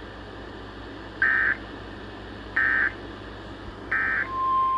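NOAA Weather Radio data signal over radio hiss: three short, identical bursts of warbling two-tone data about a second and a half apart, the SAME header that precedes an alert. Near the end a steady single-pitch alert tone begins, marking a new warning about to be read.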